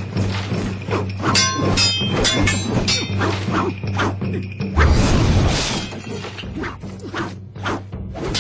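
Fight-scene sound effects: spears and long-bladed polearms clashing with metallic clangs and rings, whooshing swings and hard hits, over a droning music score. A loud, heavy impact comes about five seconds in.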